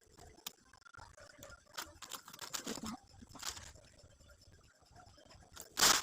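Gift packaging being handled and unwrapped: scattered small clicks and taps, rustling a couple of seconds in, and a loud crinkling rustle near the end.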